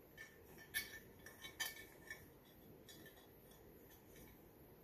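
Near quiet, broken by several faint, light clinks of small hard objects, most of them in the first two seconds.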